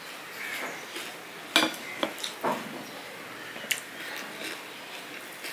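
Stainless steel plates and bowls clinking as they are handled and food is mixed by hand on a steel plate: a few sharp clinks, the loudest about a second and a half in.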